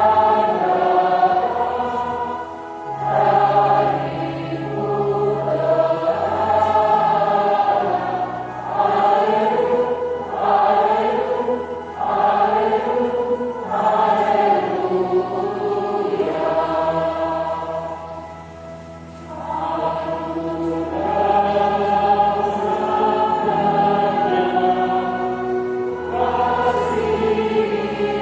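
Church choir singing a hymn in slow, held phrases. Near the two-thirds mark the singing briefly drops away between phrases, then carries on.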